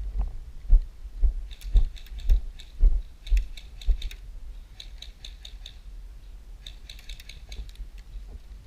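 Airsoft guns firing three bursts of rapid, sharp clicks, each burst about a second long. Footsteps thud about twice a second during the first half.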